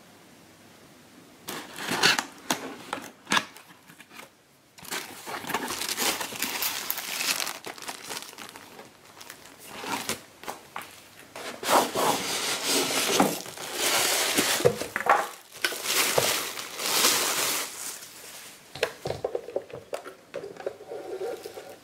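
Packaging being handled: a cardboard box opened and plastic wrapping and a zip bag crinkling and rustling, with scrapes and knocks, in irregular bursts.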